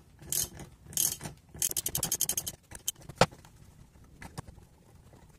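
Socket ratchet wrench clicking in short bursts as it tightens a bolt threaded onto a cylinder-head stud, with a fast run of clicks about two seconds in and a sharp single click a second later, then a few faint ticks.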